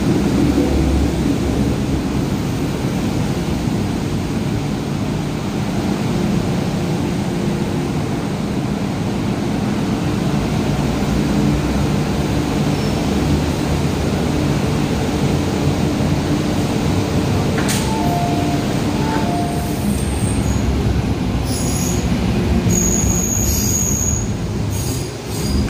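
A Metro Cammell MTR M-train moving through the platform, making a steady low rumble with humming tones from its running gear. About 18 seconds in a short alternating two-note tone sounds twice, and near the end there are brief high-pitched wheel squeals.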